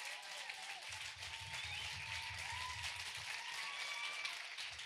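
Audience applauding, steady clapping from a seated crowd.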